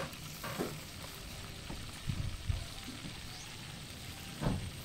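Catfish sizzling as it cooks over a wood fire, a steady hiss with a few soft low knocks about two seconds in and near the end.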